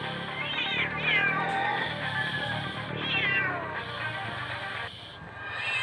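A domestic cat meowing several times, high calls that fall in pitch, from a cat stuck up a tree and still afraid to climb down.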